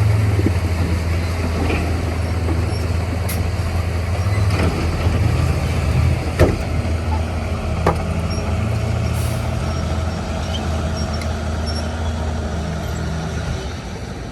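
Heavy diesel engine of earthmoving equipment running steadily with a low hum, with a few sharp metallic knocks, the loudest about halfway through.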